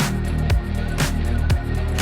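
Background music with a steady beat, about two beats a second over a heavy bass line.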